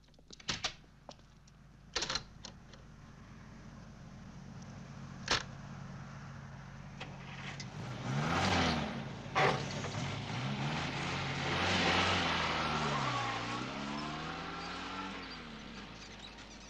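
Car door clicks and a door shutting, then a saloon car's engine starting about eight seconds in and revving as the car pulls away, its pitch rising and falling through the gears.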